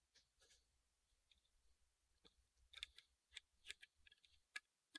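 Faint, scattered clicks and light rattles of 3D-printer wiring being handled and pulled free of the frame, sparse at first and coming a few a second from about halfway through.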